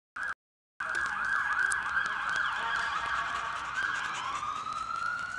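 Siren sounding, first in a fast yelp that sweeps up and down about three times a second, then changing about four seconds in to a slower rising wail. The audio drops out completely twice in the first second.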